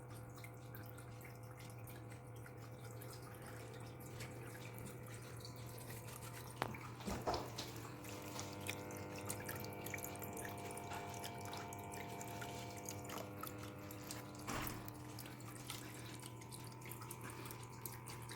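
Small indoor tabletop waterfall fountain, faint water dripping and trickling over a steady low hum. A few louder clicks come about seven seconds in and again near fifteen seconds.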